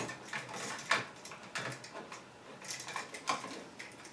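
Irregular light clicks and taps of a single-pole wall switch, its wires and a screwdriver being handled, with a sharper click about a second in.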